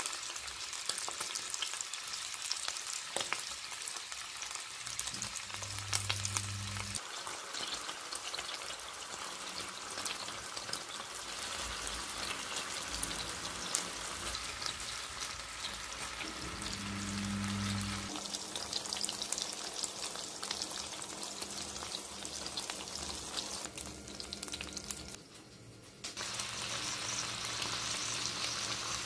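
Whole pork sausages frying in hot oil in a pan, a steady sizzle with many small crackling pops. After a short drop about 25 seconds in, the sizzling picks up again as bacon strips fry in the same oil.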